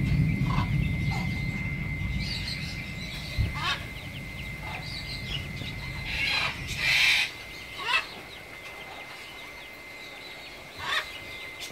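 Birds calling at intervals, short calls that rise and fall in pitch, loudest about seven seconds in and again near the end, over a low rumble that fades away about seven seconds in.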